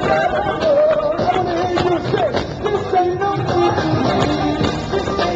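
Live rock band music at a concert, loud and continuous: a wavering melody line over a steady drum beat.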